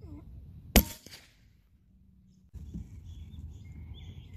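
A single shot from a CZ452 .22 LR rimfire rifle firing a subsonic round: one sharp report a little under a second in, with a short ringing tail.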